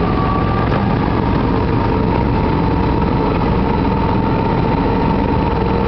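Argo amphibious ATV engine running at a steady speed while the vehicle moves through flood water, a constant drone with a steady whine over it.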